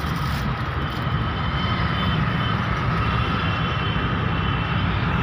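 Steady motor vehicle running noise: a continuous low rumble with a faint high whine held level throughout.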